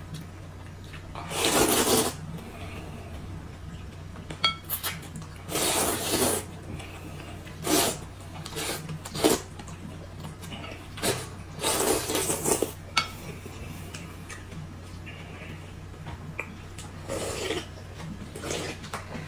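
Noisy slurping of noodles and soup broth in repeated bursts, with chopsticks clicking against a glass bowl in between and a low steady hum underneath. Near the end the broth is slurped straight from the tilted bowl.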